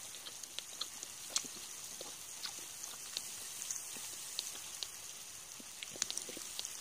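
Wood fire with baklava warming on its embers, crackling and sizzling in faint, irregular pops over a steady hiss.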